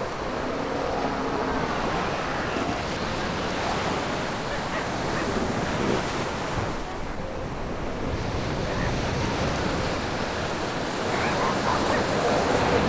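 Ocean surf breaking and washing up a sandy beach, with wind on the microphone.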